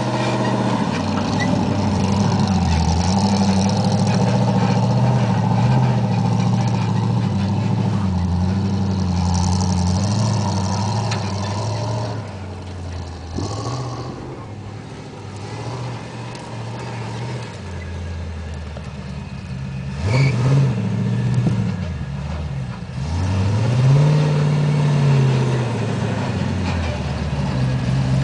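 Off-road Jeep's V8 engine labouring at low revs as it crawls over dirt mounds. It is loud and steady at first, then fainter for several seconds as the Jeep moves off behind a mound. About two-thirds of the way in come two revs, the second rising and falling back.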